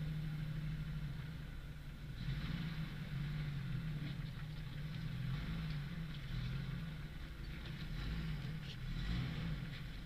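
Jeep engine running steadily at low revs as it crawls over a rock garden, with a few sharp clicks and crunches of tyres on stone near the end.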